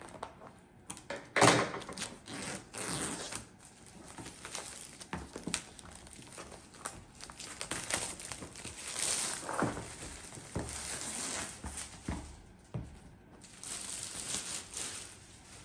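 Packaging of a diamond painting kit being opened and handled: irregular crinkling and rustling, loudest about a second and a half in, with a few short knocks.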